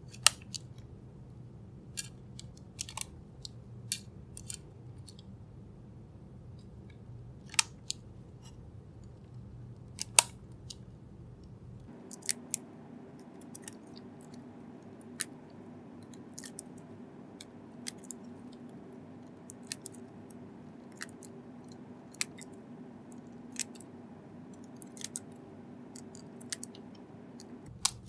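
Mechanical keyboard switches (Boba U4T) snapping one by one into an FR4 switch plate and Kailh hotswap sockets, each seating with a sharp click. The clicks come irregularly, a second or two apart.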